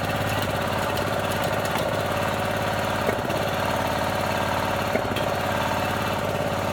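Small gas engine of a hydraulic pump unit running steadily, driving the jacks on foundation piers that lift settled steps. Two faint clicks sound about three and five seconds in.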